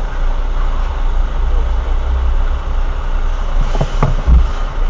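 Steady low rumble of road vehicles standing with engines running, as picked up by a dashcam's microphone, with a short sharp knock about four seconds in.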